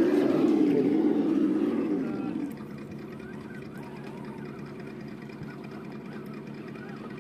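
Electric motor and gearbox of a scale RC rock crawler whining as the truck creeps over rocks. For the first two seconds or so the whine is louder and wavers in pitch with the throttle, then it settles into a steadier, quieter hum.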